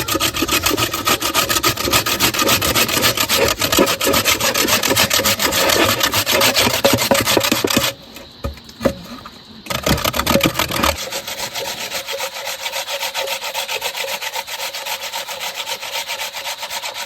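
Rapid, rhythmic strokes of a tool working against wood. They stop briefly about eight seconds in and resume lighter.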